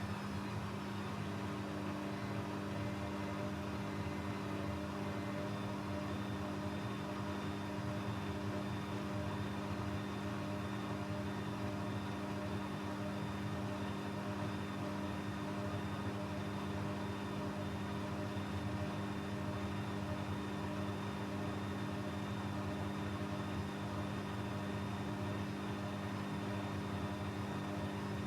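Techwood WB 91042I washing machine running at a steady speed: an even motor hum with a high whine, with no change in pitch.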